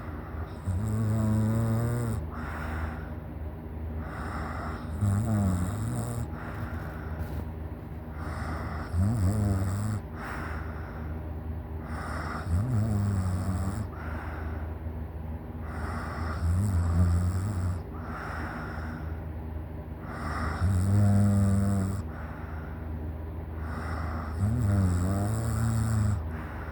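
A sleeping person snoring heavily: about seven loud, low, rattling snores roughly every four seconds, with softer breathy puffs of air between them.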